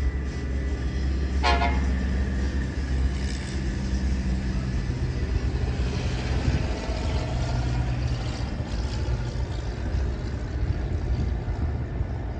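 Horn of an approaching commuter train: a short toot about a second and a half in, then a fainter longer blast a few seconds later, over a steady low rumble.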